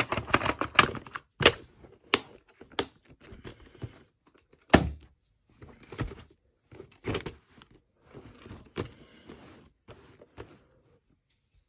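Clicks and knocks of hard plastic being handled: a VHS cassette pressed into a clear plastic clamshell case and the cases moved about, with light rustling in between. The loudest knock comes about five seconds in, and the handling dies away just before the end.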